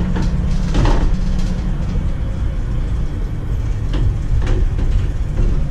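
Small truck on the move, heard from inside its bare metal cargo box: a loud, steady, low rumble of engine and road noise, with a few sharp knocks and rattles of the loose body over bumps.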